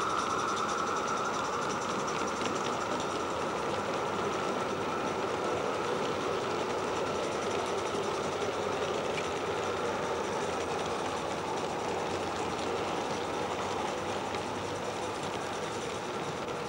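Miniature live-steam train running past: the small steam locomotive draws away while its long train of coaches rolls by on the track, the sound slowly getting quieter.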